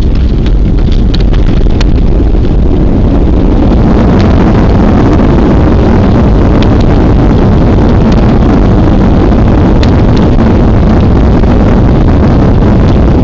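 Loud, steady rumble and rush of a Boeing 737-300 during its landing roll on the runway, heard from inside the cabin, with a higher rushing layer building about four seconds in and a few faint cabin rattles.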